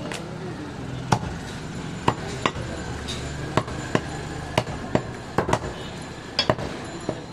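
A heavy curved butcher's cleaver chopping through goat ribs onto a wooden log chopping block: about a dozen sharp chops at an uneven pace, some coming in quick pairs.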